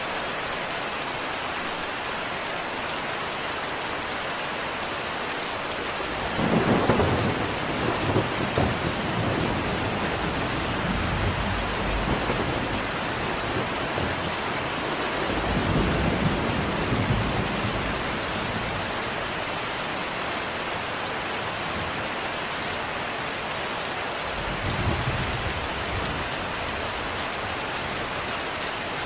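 Steady rain with rolls of thunder: a long low rumble starting about six seconds in, another around the middle, and a shorter one near the end.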